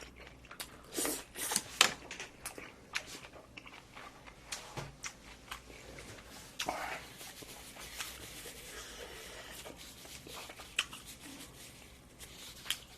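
Eating sounds close to a sensitive microphone: chewing and crunching food, with many sharp clicks and taps, loudest in a cluster of clicks near the start.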